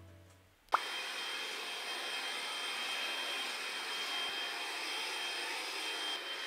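A sharp click under a second in, then a cordless stick vacuum running steadily, an airy hiss with a thin high whine on top.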